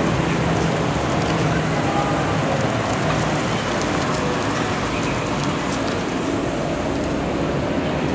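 Engines of WWII six-wheeled armoured cars running as they drive slowly past, a steady noisy rumble with a low engine hum that fades after the first few seconds.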